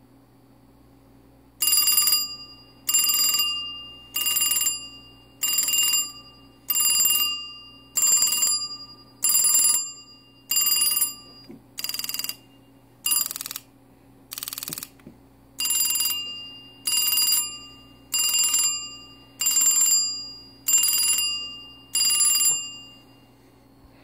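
Western Electric Trimline telephone's ringer bell, out of the phone, struck by its small plastic hammer with its repaired hammer mechanism. It rings in about sixteen short rings, roughly one every second and a bit, each fading away, with a few weaker rings about halfway through.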